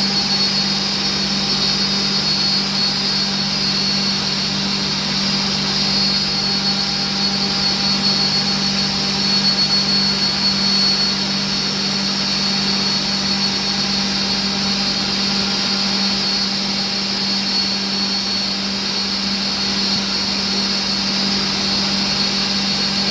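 Steady drone of running workshop machinery, a low hum under a high, even whine, with no change in speed.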